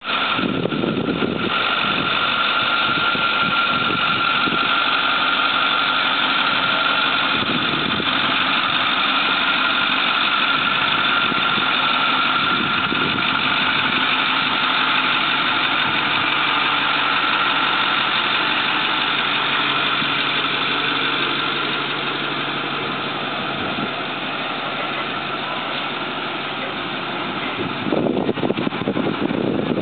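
Engine of a Ford F-450 brush truck idling steadily, getting louder for a moment near the end.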